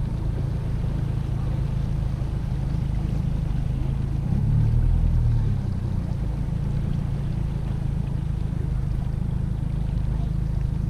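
Bass boat's outboard motor running at low speed: a steady low drone that grows briefly louder about four seconds in.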